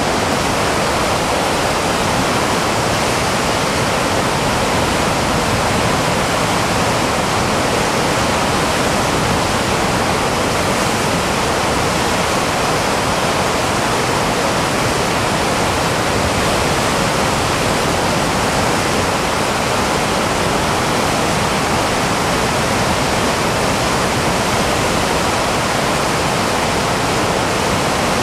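Whitewater rapids of a mountain river rushing over boulders: a loud, steady rush of water with no letup.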